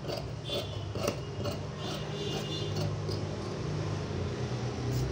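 Tailoring scissors cutting through cotton lining fabric in several short snips, over a steady low hum.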